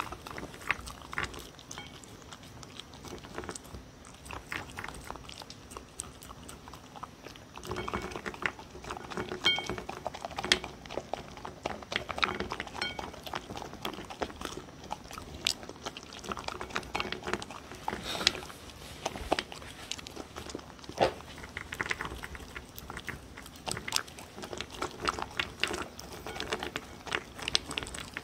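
A dog eating from a bowl close to the microphone: irregular crunching and chewing of dry kibble mixed with soft sweet potato, paprika and beef, with short gaps between mouthfuls.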